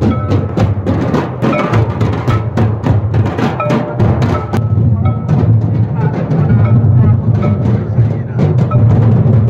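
Traditional Santali dance drumming: rapid, dense drum strokes over a steady deep drum, with short held tones above.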